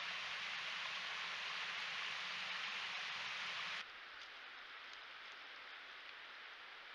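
Steady hiss of water, strongest in the upper-middle range, picked up by a trail camera's microphone. It cuts off abruptly about four seconds in, giving way to a quieter, thinner hiss with a few faint ticks.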